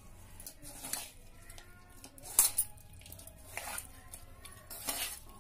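Hand mixing small fish into wet mustard paste in a metal bowl: a few light clinks and knocks against the bowl, the loudest about two and a half seconds in, as the hand and its bangles strike the rim.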